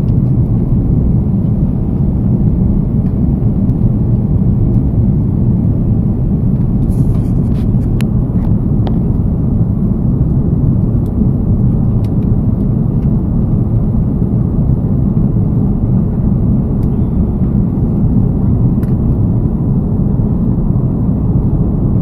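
Steady aircraft cabin noise: a loud, even low rumble of engines and airflow heard from inside the passenger cabin in flight, with a few faint clicks about seven to nine seconds in.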